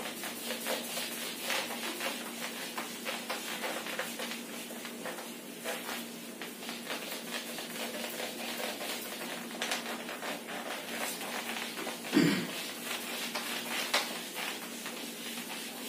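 Whiteboard eraser (duster) rubbing back and forth across a whiteboard in quick scrubbing strokes, over a faint steady hum. A brief louder sound comes about twelve seconds in.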